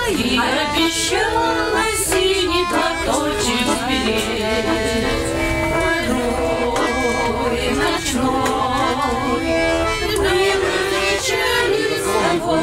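Button accordion playing a Russian folk tune in held, steady chords, with a woman's voice singing along.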